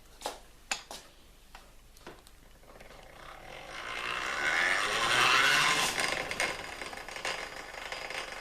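Restored hand-cranked grinder being turned: a few sharp clicks, then a scraping whir that swells for several seconds and eases off, with clicks and rattles.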